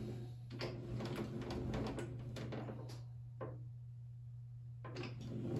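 Hand-cranked slip roll being turned, its gears and rollers creaking and clicking as a strip of sheet steel is curled into a muffler shell. The cranking sounds pause from about three to five seconds in, then resume.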